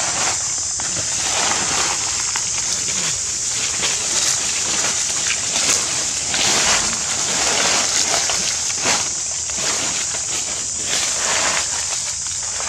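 Dry fallen leaves crunching and rustling under irregular footsteps, over a steady high-pitched hiss.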